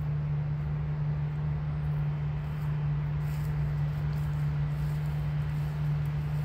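New Holland combine harvester running while harvesting wheat, heard as a steady low machine hum over a rumble that doesn't change.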